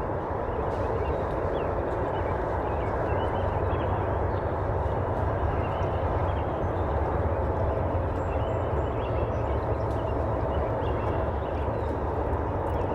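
Steady low rumbling noise with faint, scattered high chirps over it.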